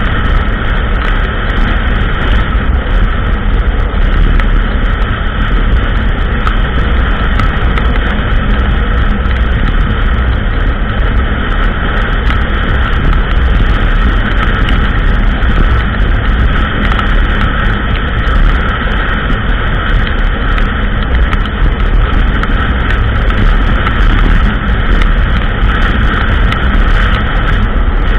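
ATV (quad) running steadily on a trail ride, loud throughout, with many small clicks and knocks over the engine noise.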